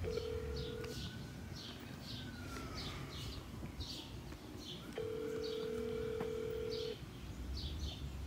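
Telephone ringback tone as an outgoing call rings unanswered: a steady tone sounds briefly at the start and again for about two seconds in the middle. Birds chirp repeatedly in the background.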